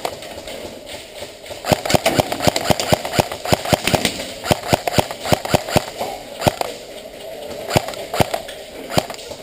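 Airsoft gun firing a rapid string of sharp semi-automatic shots, several a second, with a short pause and a few more shots near the end.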